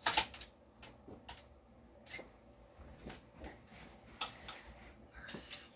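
Scattered light clicks and taps at an uneven pace, roughly one every half second to second, with a louder knock right at the start.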